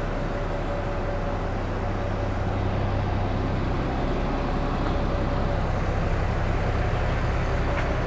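Truck-mounted Amco Veba knuckle-boom crane working under remote control: steady running of the truck engine and hydraulic pump with a low hum, getting a little louder about three seconds in as the boom moves.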